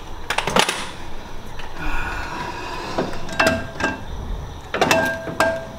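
Metal clanks and knocks, several with a short ringing tone, as a front strut assembly with its coil spring is worked out of a car's wheel well past the brake parts. The clanks come about half a second in, around three and a half seconds, and in a quick cluster near five seconds.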